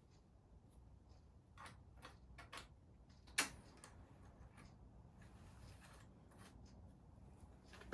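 Near silence with a few faint, irregular clicks and taps, and one sharper click about three and a half seconds in.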